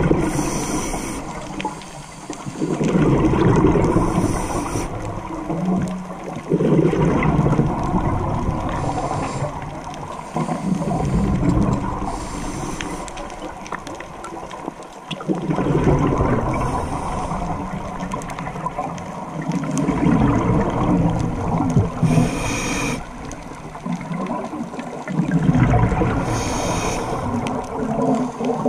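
Scuba diver breathing through a regulator underwater: a short hiss on each inhale, then a longer bubbling rumble of exhaled air, repeating about every four to five seconds.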